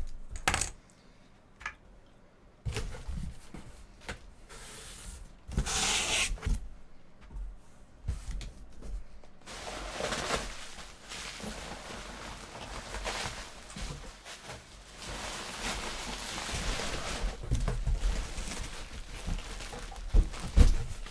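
Packaging being handled during an unboxing: scattered knocks and small clinks, then from about halfway a steady rustling of wrapping.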